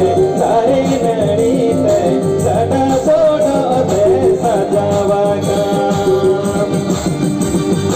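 A man singing a Santali song through a microphone and PA over amplified backing music with a steady beat.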